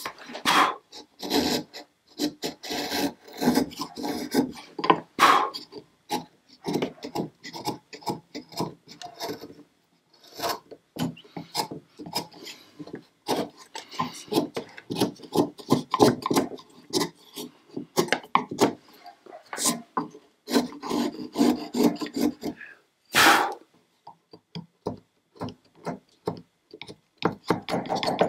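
Sharp hand chisel paring the wooden tenon of a stringed-instrument neck: repeated short scraping cuts taking off shavings, in runs broken by brief pauses, with one harder stroke near the end.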